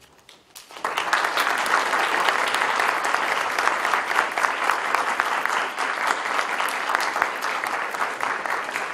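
Audience applauding, a dense patter of many hands that starts about a second in and eases off slightly toward the end.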